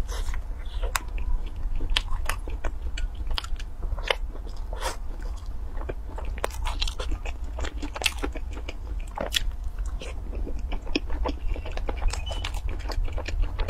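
Close-miked eating: biting into chocolate-coated cream puffs and chewing, with many short, sharp crackles and smacks at an irregular pace. A steady low hum sits underneath.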